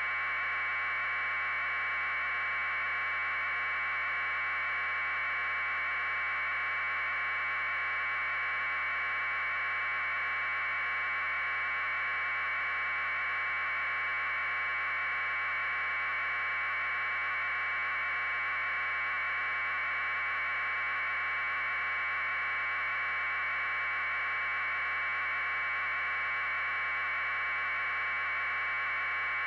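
Steady, unchanging hiss held in a narrow mid-pitched band, like static on an audio feed.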